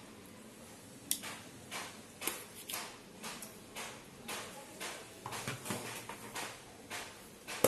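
Spoon scooping thick yogurt onto raw chicken in a steel bowl: a run of light, irregular taps and clicks, about two or three a second, with a sharper click near the end.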